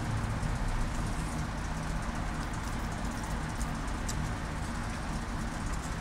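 Steady low background hum, with a few faint light clicks of a screwdriver turning a small jet back into a lawnmower carburetor body.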